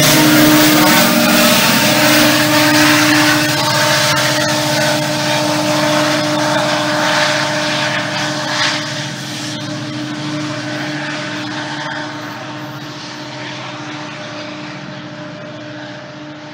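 GO Transit MP40PH-3C diesel locomotive's engine running with a steady drone as the train moves away, fading with distance. Wheel and rail noise dies down about halfway through.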